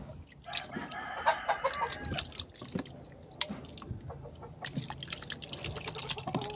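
A rooster crows about half a second in, the loudest sound, with more fowl calls near the end. Underneath, a hand sloshes and stirs small fish in water in a plastic tub, with steady splashing and dripping.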